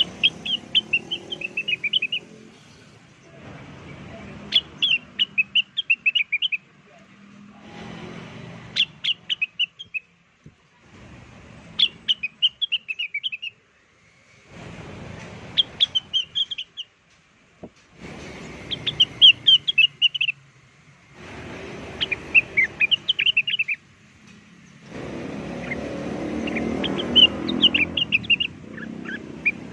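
Cucak wilis, a leafbird, singing a lure call: short bursts of rapid, high chirping notes, each about two seconds long. The bursts repeat roughly every three and a half seconds as a looped recording, each carrying its own patch of background noise.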